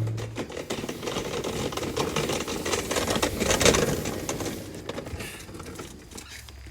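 A dense crackling rattle of rapid clicks that fades out over several seconds, right after a car engine's rev falls away.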